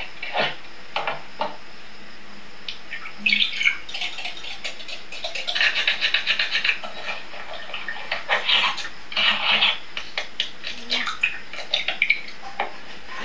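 Kitchen handling sounds from a cooking video heard through a television's speaker: bowls and utensils clinking and tapping in short clusters, with scattered single ticks.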